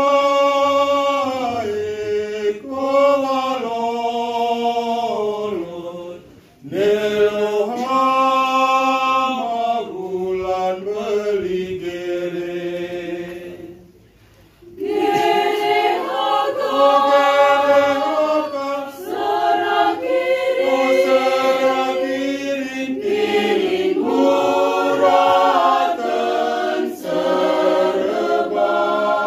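Mixed group of men and women singing together, unaccompanied. They sing in phrases, with a short break about six seconds in and a longer one around halfway.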